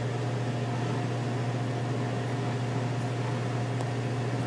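Steady low machine hum with a hiss over it and no distinct events, the constant background drone of a running fan or appliance.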